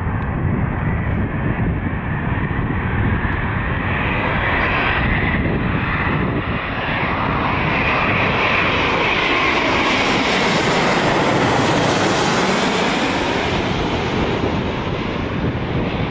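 Airbus A350's Rolls-Royce Trent XWB jet engines passing low overhead on landing approach: a steady jet roar with an engine whine that falls in pitch as the plane goes by. It is loudest about eleven to twelve seconds in, then eases as the plane moves away.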